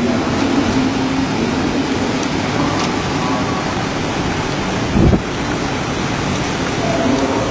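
Typhoon wind and rain, a loud steady noise, with one brief low thump about five seconds in.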